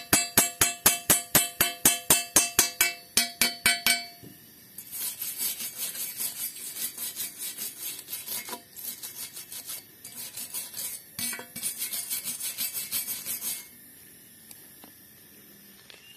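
Steel pipe ringing under rapid taps of a chipping hammer knocking slag off a stick weld, about four strikes a second for the first four seconds. Then a steel wire brush scrubs the weld bead in quick back-and-forth strokes for about nine seconds, stopping near the end.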